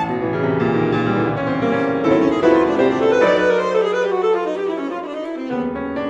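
Piano playing a busy passage of quick, shifting chords in a contemporary classical piece.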